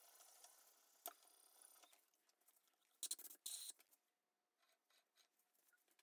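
Mostly near silence, with a faint hiss fading away, a single click, and a brief scrape about three seconds in, from a gloved hand rubbing over a wooden lathe blank.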